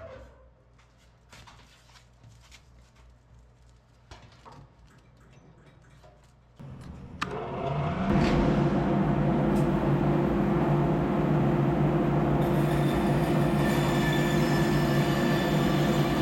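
A few light knocks and clicks, then about seven seconds in an electric woodshop machine switches on and runs up to a loud, steady motor hum.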